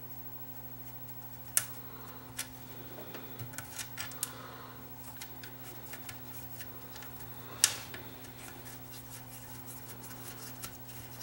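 Small clicks, taps and rustles of hands handling wires and a metal part on a vintage tube radio's chassis, with two sharper clicks, the louder about seven and a half seconds in. A steady low hum runs underneath.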